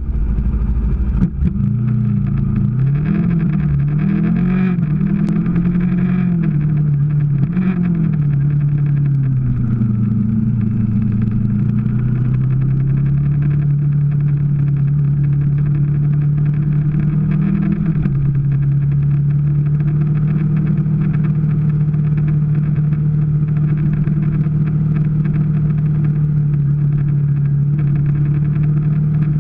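Kawasaki Ninja 250 ('Ninjette') parallel-twin engine under way. Its pitch rises and falls with throttle and gear changes for the first ten seconds or so, then holds steady at a cruise, dropping slightly about eighteen seconds in. A single knock comes about a second in.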